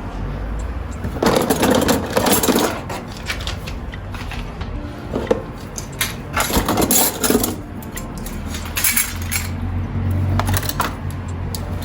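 Hard household objects being handled and knocked together: irregular clinks and clatters, with two longer rattling spells, the second a little past the middle.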